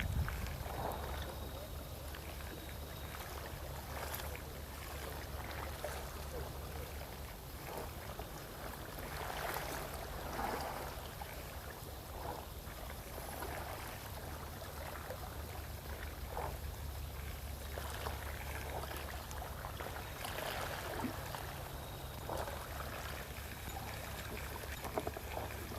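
Steady low rumble of wind on the microphone with faint sea water lapping and a few small scattered knocks.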